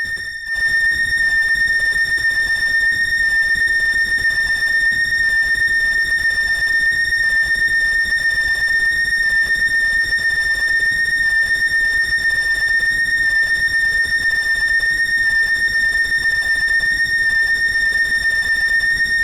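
Arturia Buchla Easel software synthesizer holding a steady, high-pitched whistling tone at one unchanging pitch, with a brief dip just after it begins.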